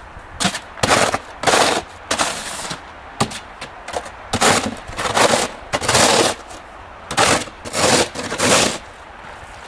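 Snow shovel blade scraping over pavement in about a dozen quick strokes, which stop shortly before the end.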